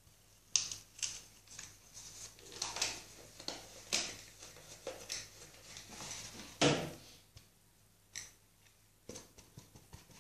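A sock being stretched over the cut end of a plastic bottle by hand: irregular fabric rustles and plastic crackles, loudest about half a second in and again just before seven seconds, then only a few light clicks.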